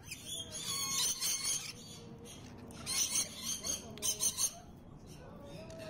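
Rainbow lorikeets chattering and screeching in short high-pitched bursts, one about a second in and more around three and four seconds.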